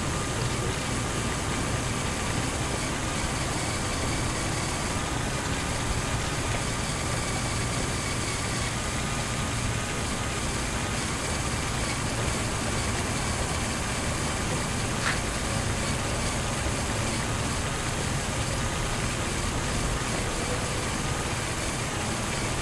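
Onboard sound of a LEGO Technic RC off-roader driven by two Power Functions L-motors: a steady motor whine and gear noise over the rumble of its tyres rolling on brick pavers.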